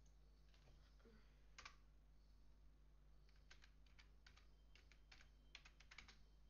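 Faint typing on a laptop keyboard: a single click about a second and a half in, then a quick run of keystrokes from about halfway through.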